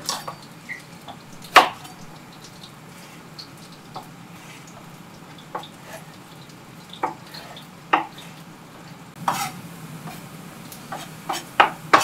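Chef's knife knocking on a plastic cutting board as fresh ginger is cut, single sharp knocks spaced a second or two apart with a quick cluster near the end, over a low steady hum.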